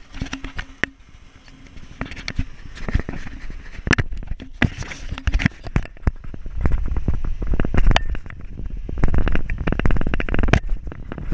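Footsteps crunching on a gravel road, with many sharp irregular clicks of stones underfoot, growing heavier and louder in the second half.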